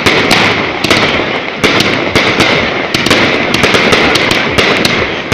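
Fireworks going off in quick succession: sharp bangs at a few per second, irregularly spaced, over a continuous rushing noise.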